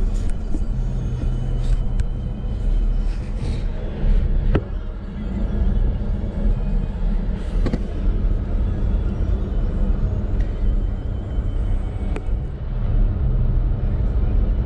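Steady low rumble of a Jeep's engine and tyres, heard from inside the cabin while it drives down a paved mountain road, with a few faint clicks.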